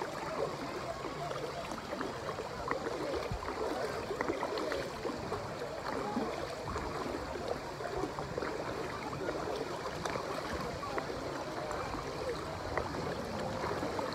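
Lazy-river water flowing and lapping steadily, with constant small gurgles and sloshes.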